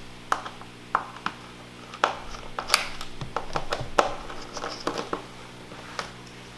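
Irregular sharp clicks and taps of a tool and small metal and plastic parts being handled as the hard-drive mounting bracket is taken out of an opened iMac, over a steady low hum.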